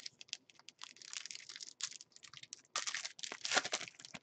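Plastic wrapper of a hockey trading-card pack being torn open and crinkled by hand, a dense crackling that is loudest about three seconds in.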